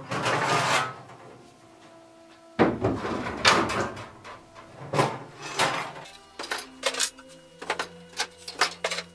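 Hand saws being lifted off a bench and hung on pegboard hooks: a series of knocks and clatters of saw blades and handles. Some knocks leave the steel blades ringing briefly.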